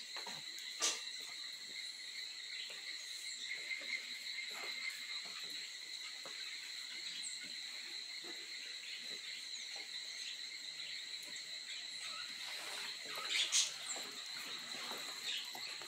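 Insect chorus, a steady high-pitched ringing drone, with a few brief clicks, the loudest near the end.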